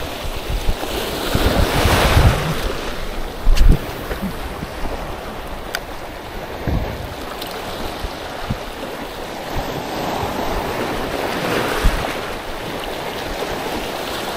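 Sea waves washing onto a beach, swelling about two seconds in and again from about ten to twelve seconds, with wind blowing on the microphone. A short low thump about three and a half seconds in is the loudest moment.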